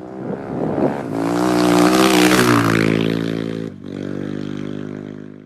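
Motorcycle engine revving up and running hard, breaking off suddenly a little past halfway, then running steadily and fading out.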